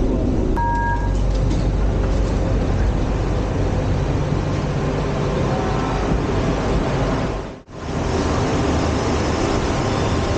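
Running noise of a KL rubber-tyred monorail train heard from inside the car, with a brief two-tone electronic beep just under a second in. After an abrupt break near the end, the steady noise of a monorail train moving along the station.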